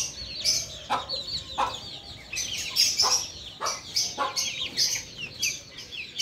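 Mother hen clucking in short calls every half-second to a second, while her chicks keep up a steady stream of high, falling peeps.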